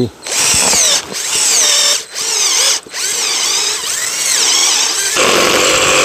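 Cordless drill boring into a tree trunk, its motor whine rising and falling with the trigger and the load and stopping briefly three times. About five seconds in, a cordless reciprocating saw starts cutting into the wood with a steadier, denser buzz.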